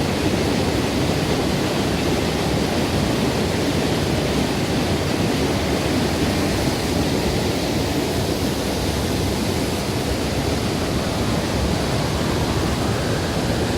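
Waterfall: water falling and crashing, a steady loud rush with no change in it.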